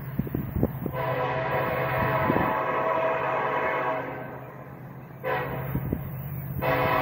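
Norfolk Southern diesel freight locomotive approaching and sounding its air horn: a long blast of about three seconds, a short blast about five seconds in, then another long blast starting near the end. A steady low engine hum runs underneath.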